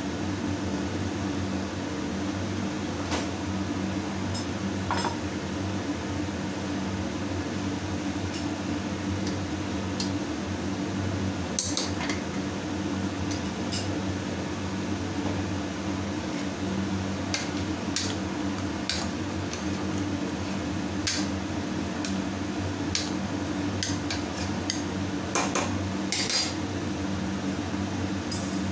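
Scattered sharp clinks and taps of a steel spoon, plates and containers being handled in a kitchen, over a steady low hum.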